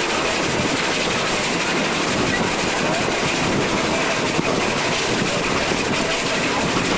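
Open passenger carriage running behind a small locomotive: a steady rumble and rattle of wheels on the rails, without a break or change.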